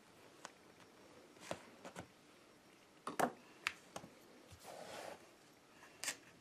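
Protecto Wrap flashing tape being pressed and smoothed by hand onto a wooden window sill: scattered light clicks and taps, the strongest a little after three seconds in, and a short rustle near five seconds.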